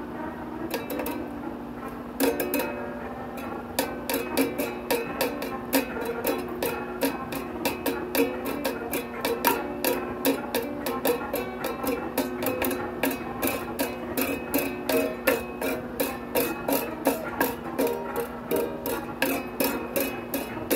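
Music: a held low note with shifting tones above it, cut by a steady rhythm of sharp clicks about three a second.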